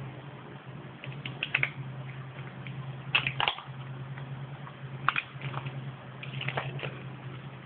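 Hands handling sticky tape on a pole, making short scratchy crackles and taps a few times, over a steady low hum.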